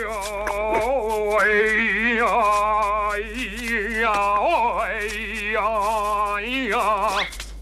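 A harmonica-style tune: held, wavering notes and short melodic runs, stopping shortly before the end.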